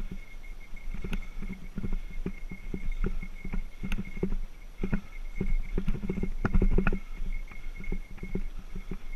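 Mountain bike rolling over a bumpy dirt single track, heard through a mounted action camera: a low tyre rumble on the dirt with frequent irregular knocks and rattles, most dense about six to seven seconds in. A faint steady high tone sits underneath.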